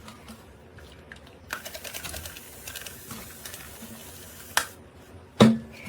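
Light clicks and taps of small hard objects being handled, with three sharper knocks, the loudest near the end.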